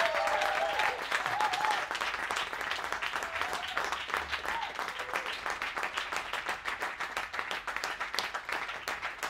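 Audience applauding, with a few whoops and cheers in the first second or two; the clapping gradually thins and quietens.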